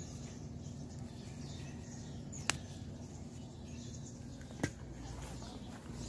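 Outdoor garden ambience with a steady low hum and a few faint bird chirps. Two sharp clicks come about two seconds apart.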